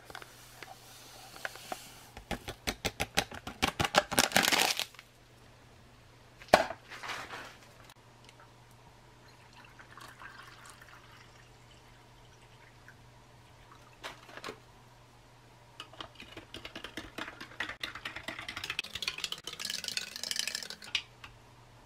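Powdered tropical punch drink mix shaken and tapped out of its foil pouch into a glass: a soft hiss, then a quick run of sharp ticks. Water is poured in from a plastic bottle, faintly, around the middle. Near the end a plastic spoon stirs the drink, with quick clicking and scraping against the glass.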